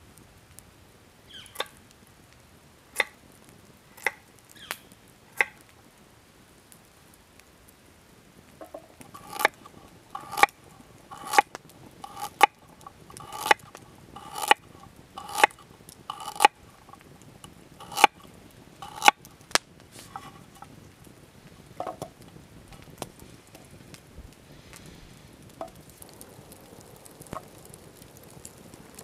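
Knife cutting carrot into rounds on a wooden cutting board: sharp knocks of the blade striking the board. A few knocks are spaced out at first, then comes a run of about a dozen louder cuts, roughly one a second, and a few softer knocks near the end.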